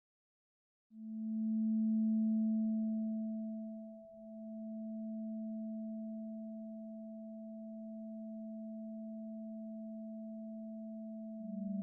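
Electronic drone tone in a film soundtrack: after about a second of silence, a steady low pure tone sets in with a fainter higher tone above it. It dips briefly about four seconds in, and a second, lower tone joins near the end.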